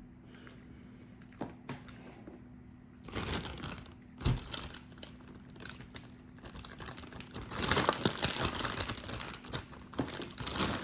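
A sandwich being bitten into and chewed close to the microphone: irregular crackly, clicky mouth sounds, with a sharp knock about four seconds in and the densest crackling from about seven and a half to nine seconds in.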